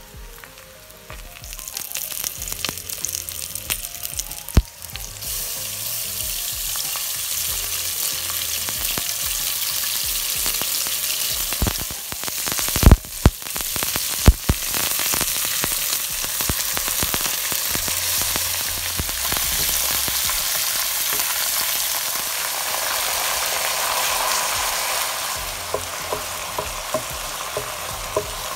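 Hot oil sizzling steadily in a nonstick pot as flatbread and spaghetti are layered into it. A few sharp knocks come through the sizzle, once early and several times around the middle.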